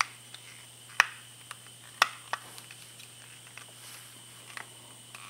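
Sharp plastic clicks and knocks as a Garmin Striker 4 transducer's mounting bracket is handled and fitted together by hand: a few separate clicks about a second apart, then fainter ticks, over a steady low hum.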